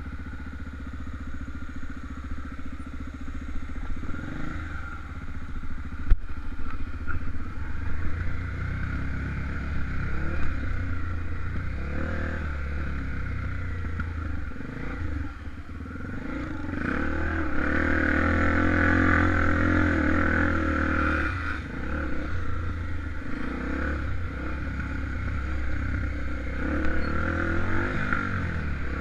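Honda XR 250 Tornado trail bike's single-cylinder four-stroke engine running under way, its pitch rising and falling with the throttle and louder for a few seconds past the middle. There is one sharp knock about six seconds in.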